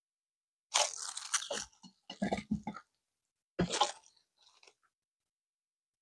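Metal ladle scooping dressed mixed vegetables for pickles from a stainless steel bowl and dropping them into a glass jar: three bursts of wet crunching and short knocks.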